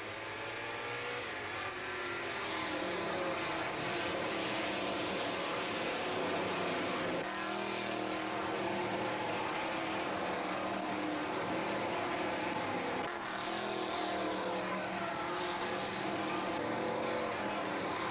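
A pack of V8 racing cars, mostly Chevrolet Camaros, at full throttle. Many engines overlap and rev up and down, louder over the first few seconds as the field gets away from the start and then races past.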